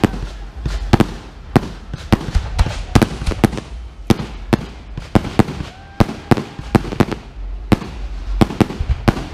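Aerial fireworks shells bursting in a rapid, irregular series of sharp bangs, several a second, over a steady low rumble.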